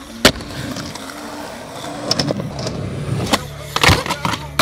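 Skateboard wheels rolling on concrete with a steady low hum, broken by several sharp clacks of the board against the ground and ramp edges. The loudest clack comes nearly four seconds in.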